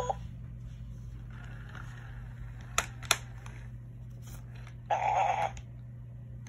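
FurReal Friends Jungle Cat white lion cub toy making a short animal-like cub sound from its speaker about five seconds in, as a finger is held to its mouth, after two light clicks near the middle.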